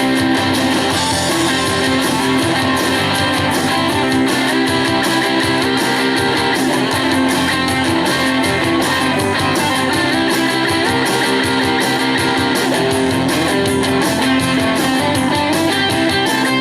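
Instrumental break of a rock song, led by guitars, electric and strummed, over a steady band.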